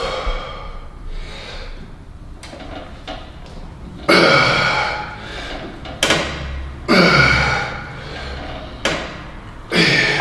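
A lifter on a plate-loaded squat machine makes loud, strained exhalations on his reps, about one every three seconds. Each starts suddenly and falls away.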